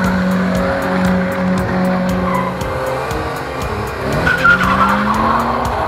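Car engine revving as the car slides and spins its tyres, the engine pitch rising in a glide about four seconds in, with tyre squeal. Music with a quick steady beat plays underneath.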